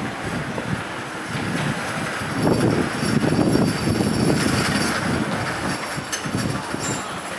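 Train running on the rails with wheel clatter, growing louder about two and a half seconds in. A short high wheel squeal comes twice near the end.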